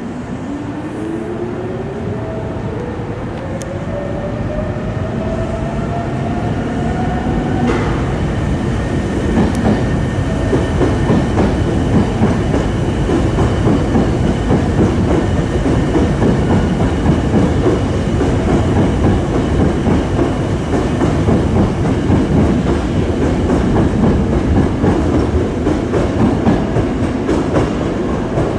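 Hankyu electric train pulling out: its traction motors whine and rise steadily in pitch for about the first eight seconds. The rumble and clatter of the wheels then grows steadily louder as the train gathers speed under the station roof.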